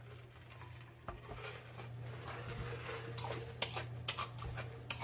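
A man drinking from a large jug, then a run of sharp, wet mouth clicks and lip smacks from about three seconds in as he tastes the drink.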